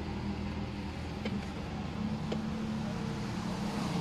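Steady low background hum, with two faint light clicks about a second and two seconds in from the metal parts of a fishing reel's side plate being handled.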